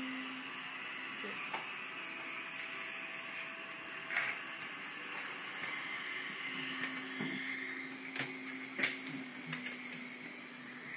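Steady hiss of a dental suction tip running in the mouth during treatment, with a few sharp clicks of dental instruments, the loudest near the end.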